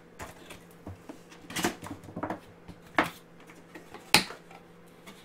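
Cardboard box being handled and opened: short rustles and scrapes of the flaps and packaging, with a few sharp knocks. The loudest knock comes about four seconds in.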